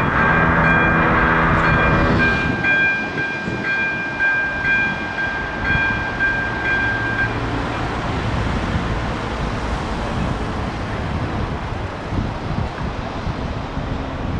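AŽD 97 level crossing's electronic warning bell ringing as a steady high tone that breaks about once a second while the barriers come down, stopping about seven seconds in. A lower horn-like tone sounds over the first two seconds, and a low rumble runs on after the bell stops.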